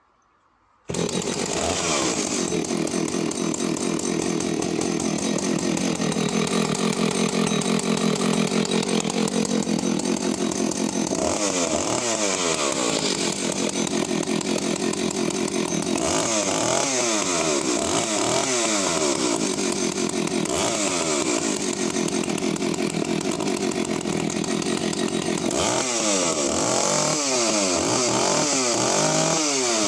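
Husqvarna 285CD two-stroke chainsaw engine firing up about a second in and running steadily, its pitch sagging and recovering for a few seconds. From about 11 seconds on it is revved again and again, the pitch rising and falling with each blip of the throttle.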